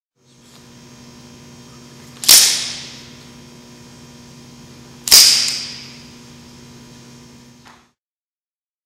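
Expandable baton flicked open twice, each time the telescoping metal sections locking out with a sharp clack and a short metallic ring, about three seconds apart. A steady low hum runs underneath.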